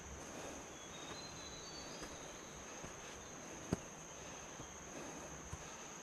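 Rainforest insects droning on one steady high-pitched note, over a faint background hiss. Scattered footsteps crunch on dry leaf litter, with one sharper knock about halfway through and a few short faint chirps in the first two seconds.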